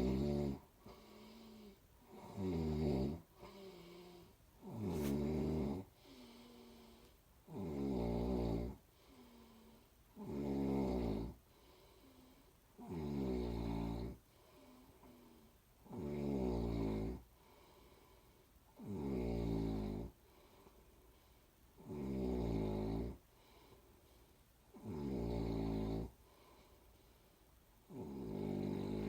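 A person snoring in a slow, steady rhythm: a loud rasping snore about every three seconds, with a softer breath between snores.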